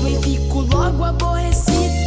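Background music: an upbeat song with a steady, deep bass line and a bending melody over it.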